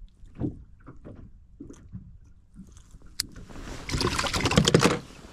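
Soft clicks and knocks of scissors against a fish and its bowl. About four seconds in, a sudden loud burst of dense crackling lasts about a second.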